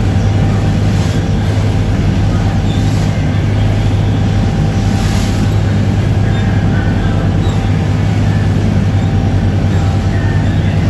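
Boat engine running steadily while under way, a loud, even low drone. A few brief hisses of water or spray come over it.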